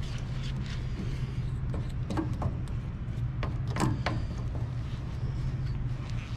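A steady low hum of background machinery, with a few light clicks and scrapes as the vacuum oven's valve knobs are turned closed by hand.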